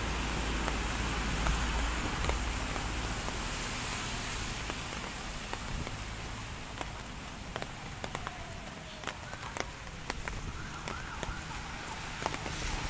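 Drizzle falling outdoors: a steady soft hiss with scattered sharp drop ticks. Low wind rumble on the microphone fills the first few seconds.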